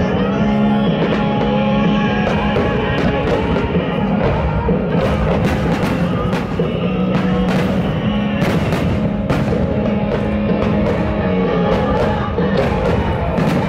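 Loud rock music playing over the show's loudspeakers for a music-synchronised fireworks display, with many sharp bangs and crackles of bursting firework shells cutting through it, thickest in the middle.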